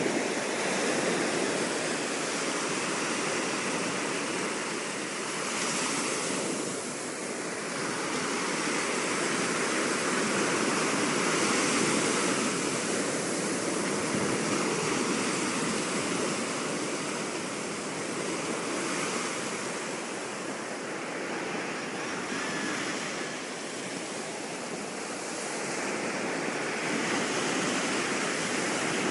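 Surf breaking on a beach: a steady rush of waves that swells and eases every few seconds.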